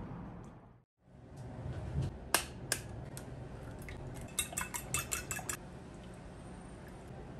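A fork and eggs in a glass baking dish. There are two sharp knocks a little over two seconds in, then a quick run of about a dozen ringing clinks as the fork beats the eggs against the glass.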